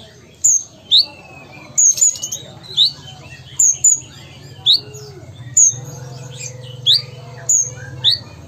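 Kolibri ninja (Van Hasselt's sunbird) calling steadily in its cage: a run of sharp, high chirps, each a quick upward sweep with a higher note after it, about one to two a second, over a faint low hum.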